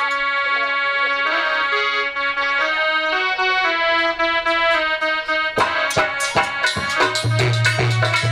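Harmonium playing a steady melody of held reedy notes. About five and a half seconds in, a dholak drum comes in with sharp strokes and then a repeating deep beat.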